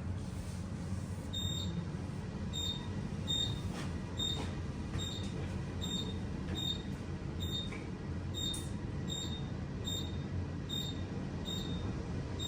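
KONE passenger elevator car descending at speed: a steady low rumble of the ride, with a short high beep repeating at an even pace a little more than once a second.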